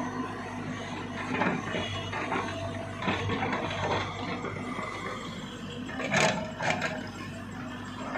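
JCB tracked excavator's diesel engine running steadily while a bucket load of soil pours and rattles into a tipper truck's steel bed. Near the end come a few sharp metal clanks.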